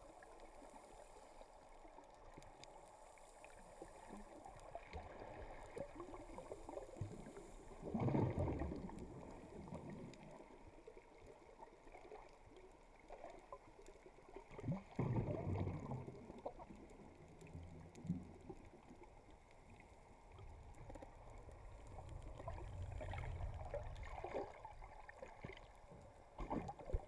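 Muffled water movement heard from underwater through a camera housing: low sloshing and gurgling with scattered small clicks, swelling into louder surges about 8 seconds in, again around 15 seconds, and more gently near the end.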